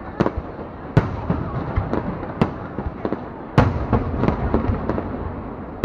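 Fireworks display: a run of sharp bangs at irregular intervals over a steady low rumble, the loudest bang about three and a half seconds in.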